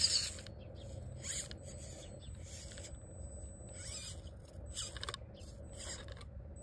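Micro-scale RC rock crawler with a stainless-can electric motor, its motor and gears whirring in a string of short spurts as it creeps up a rock face, tires scrabbling on the stone.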